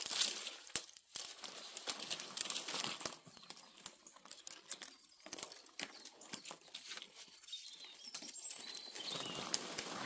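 Footsteps crunching and rustling on a forest floor, in an irregular walking rhythm.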